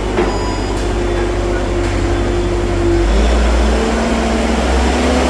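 Diesel engine of a JCB-type demolition machine running steadily, its note dropping about three seconds in as the engine load changes.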